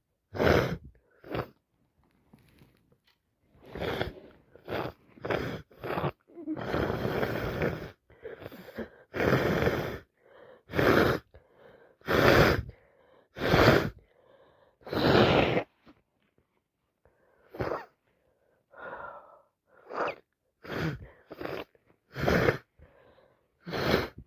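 A person with a heavy head cold in a long fit of sneezing and coughing: about twenty loud, short bursts, the biggest in the first two-thirds and smaller ones towards the end, with one longer noisy burst of over a second about a quarter of the way in.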